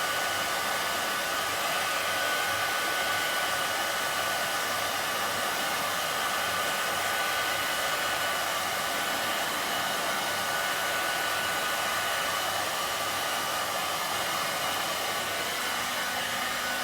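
Handheld hair dryer running steadily: an even rush of blown air with a thin high whine from the motor, unchanged throughout.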